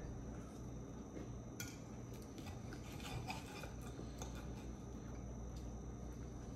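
Faint scraping and light clinks of forks and a knife against dinner plates as two people eat, with a few small ticks scattered through.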